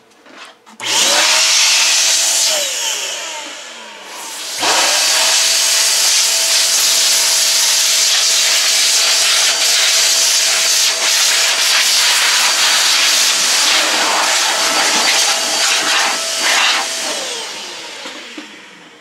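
Sin Shine electric air duster blowing air into a desktop computer case: a loud rush of air over a steady motor whine. It starts about a second in and winds down with a falling whine, starts again at about four and a half seconds, runs for about twelve seconds and winds down near the end.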